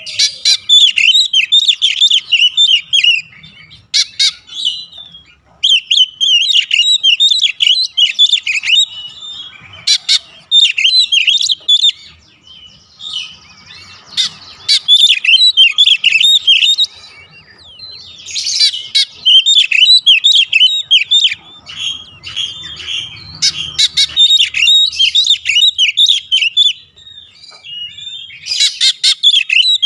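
Oriental magpie-robin singing: rapid, varied whistled and chattering phrases a few seconds long, separated by short pauses.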